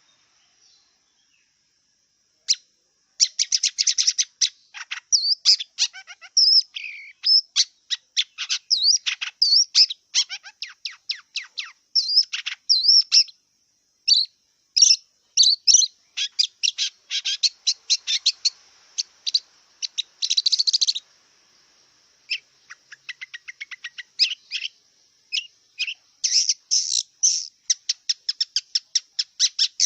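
Long-tailed shrike (cendet) singing a fast run of varied short notes, slurs and chatters, starting about two and a half seconds in, with a short pause about two-thirds of the way through.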